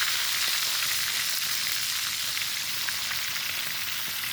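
Quail frying in hot oil: a steady sizzle with scattered small pops and crackles.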